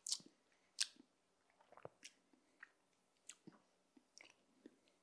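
Near silence broken by a few faint, short clicks and lip smacks as espresso is tasted. The sharpest click comes just under a second in.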